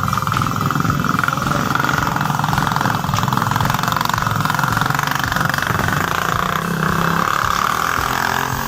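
Small motorcycle engine running steadily at an even pitch.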